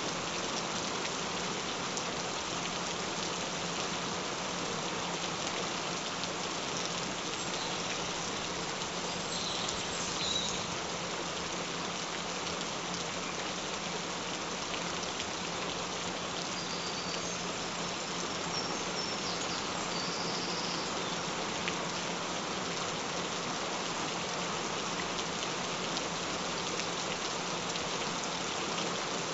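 Steady rain falling, an even hiss of drops, with a faint steady low tone underneath.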